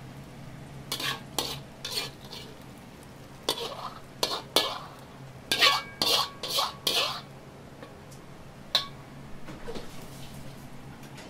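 A metal ladle scraping and clanking against a wok as the last of the thick sauce is pushed out onto the plate: a string of short, sharp scrapes and clinks, loudest just past the middle, with one more near the end. A steady low hum runs underneath.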